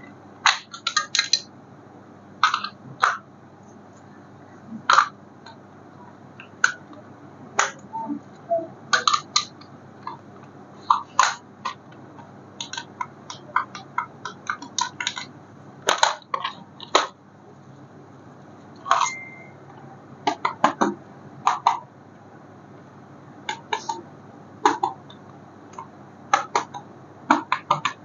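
Irregular clicks, taps and crinkles of hard plastic and packaging being handled while a toy remote-control car is unboxed, coming singly and in quick clusters.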